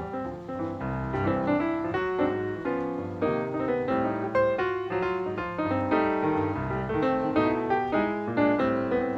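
Background piano music: a steady run of notes with no pause.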